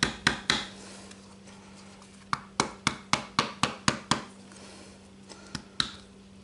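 A soft-faced mallet taps an old oil seal used as a driver against a new crankshaft oil seal in a VW engine crankcase: two sharp knocks, then a quick run of about nine, then two more near the end. The seal is already in about as far as it will go, and these extra taps check whether it will seat any deeper.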